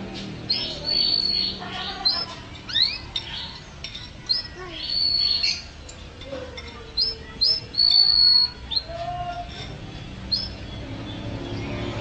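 Domestic canary singing: quick series of short high chirps mixed with held whistled notes, and one rising sweep about three seconds in.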